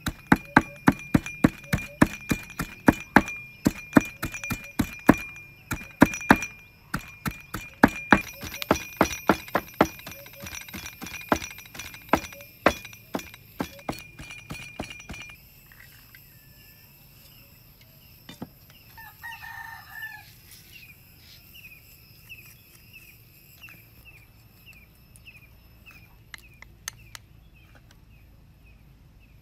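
A large kitchen knife chopping rapidly on a wooden cutting board, about three to four strokes a second, through the first half. Then quieter background with a repeating high chirp and a rooster crowing briefly.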